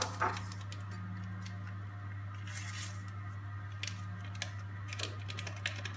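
Hands mixing flour into a soft cookie dough in a glass bowl: scattered light clicks and knocks against the glass and a brief rustle about two and a half seconds in, over a steady low hum.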